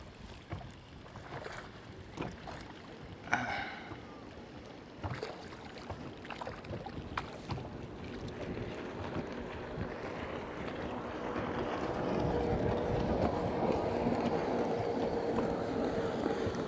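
A small largemouth bass reeled to the side of a bass boat on a jig, splashing at the surface, with scattered clicks from the reel and handling. Wind and water noise grow louder through the second half, with a faint steady hum under it.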